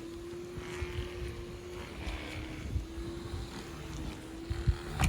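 A steady motor hum that drops out briefly about two seconds in, over wind rumbling on the microphone.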